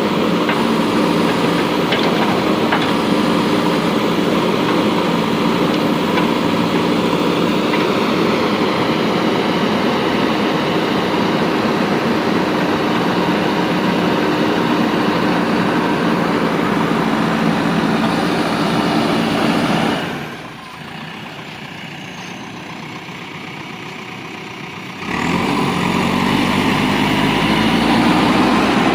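Diesel engine of a JCB 3DX backhoe loader running steadily under work. About two-thirds of the way through it drops abruptly to a quieter level for about five seconds, then comes back loud.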